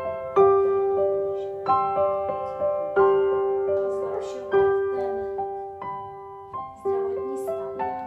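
Background piano music: a slow, gentle melody of single notes and soft chords, each struck and left to die away, with one middle note coming back again and again.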